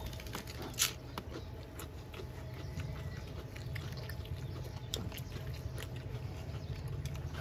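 People eating with their hands, with mouth clicks and smacks of chewing over a steady low rumble. The sharpest click comes about a second in.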